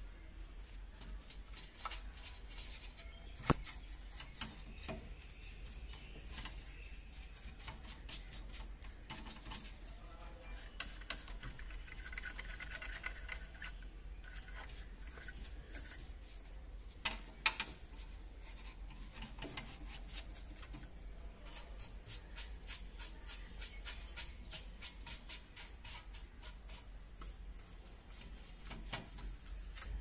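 Paintbrush bristles brushing over the metal casing of a computer power supply and a hard drive: dry, scratchy strokes full of quick ticks, with a sharper knock about three seconds in and a pair around seventeen seconds.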